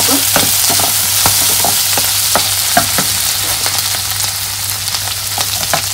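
Potato, capsicum and corn sizzling in butter in a nonstick kadhai while a wooden spatula stirs them, with a steady hiss and irregular knocks and scrapes of the spatula against the pan.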